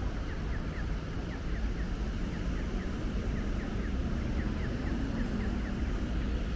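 Steady city traffic rumble with a rapid, even series of short falling chirps, about four a second, that stop about halfway through: the audible signal of a pedestrian crossing. An engine hum from passing traffic rises a little in the second half.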